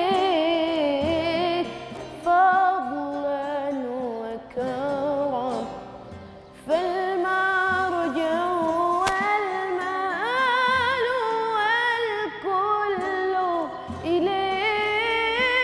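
A boy's solo voice singing an Arabic religious chant (inshad/ibtihal) in long melismatic phrases, the pitch bending and ornamented on held vowels, with short pauses for breath between phrases.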